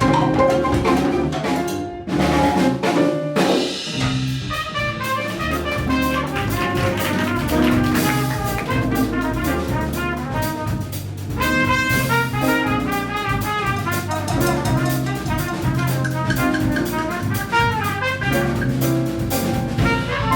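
Afro-Cuban Latin jazz quintet playing live: trumpet leads the melody over piano, bass, drum kit and hand percussion, with a short break about two seconds in.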